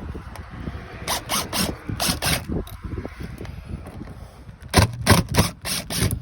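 Short rasping scrapes in quick groups, a few near the start and a faster run near the end, from tool work taking the old exterior door holder off an RV.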